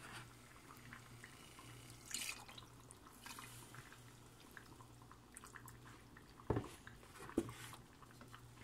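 Milk being poured into a pot of thick roux and stirred with a wooden spoon: a faint liquid pour about two seconds in, soft wet stirring, and two knocks of the spoon against the pot near the end, over a low steady hum.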